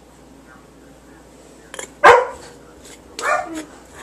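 A dog barking twice: a sharp, loud bark about two seconds in and a second bark about a second later.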